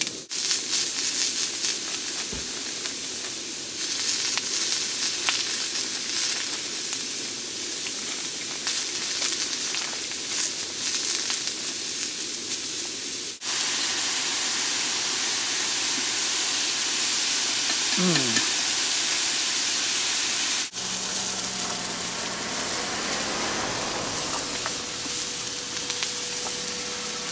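Sausages, onion, green pepper and maitake mushrooms sizzling in a small frying pan on a gas-canister camp stove, with chopsticks stirring and tapping against the pan.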